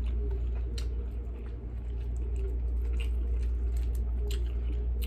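Steady low bass of music coming through the floor from a downstairs neighbour's flat, with soft wet clicks and crackles of chewing and of a cooked shrimp's shell being peeled by hand.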